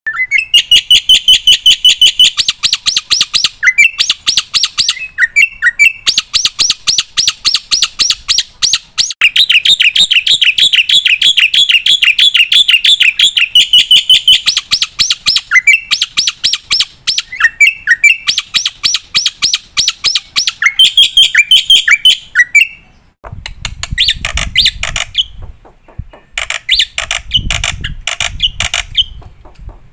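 Black-winged myna (jalak putih) singing loudly in long, fast runs of repeated chattering notes, phrase after phrase with short breaks. In the last several seconds a low rumble sits under the song.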